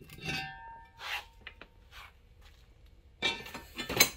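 Aluminium jet-ski engine parts, a Kawasaki 750 cylinder and crankcase, knocking and clinking together as they are handled and the cylinder is set onto the cases. A short metallic ring comes near the start, a few light clicks follow, and a cluster of louder knocks comes near the end.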